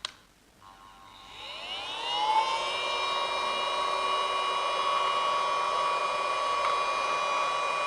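A mini USB-powered desktop vacuum cleaner clicks on at its switch, and its small motor spins up with a rising whine over about two seconds. It then runs at a steady high-pitched whine.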